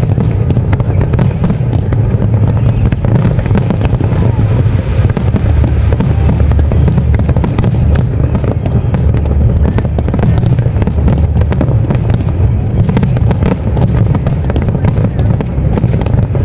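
Aerial fireworks display: shell bursts going off in quick succession over a heavy, continuous rumble.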